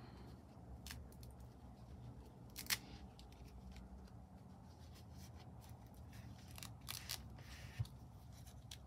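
Faint handling sounds of a plastic fashion doll being dressed: a few light clicks, the sharpest about three seconds in and a quick cluster near the end, with soft fabric rustling as a small skirt is worked up over the doll's legs.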